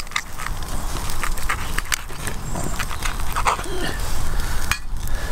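Knife and fork cutting grilled steak on an enamel plate: irregular clicks and scrapes of cutlery on the plate, over a steady low rumble.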